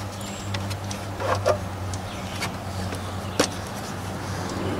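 Hands and tools knocking and clicking against parts in a car's engine bay while the cooling fan assembly is worked loose: two knocks just past a second in and a sharper click about three and a half seconds in, over a steady low hum.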